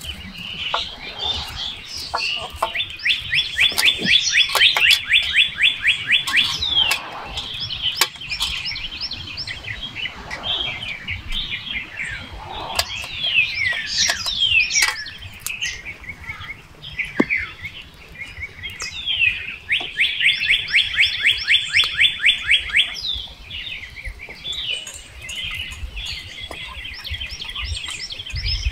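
Several birds chirping and calling. Twice a bird gives a long, fast run of evenly repeated high notes, about eight a second, lasting three to four seconds each time.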